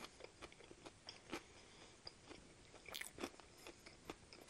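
Close-up mouth sounds of eating: wet chewing with scattered sharp clicks and crackles. About three seconds in comes a louder, crunchier bite into the breaded fried chicken burger.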